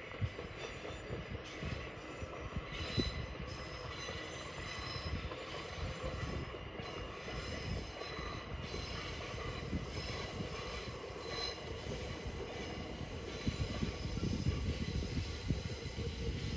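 Electric Uetliberg line train running on the rails: a steady low rumble with irregular knocks from the wheels over the track, and a high-pitched tone that fades in and out.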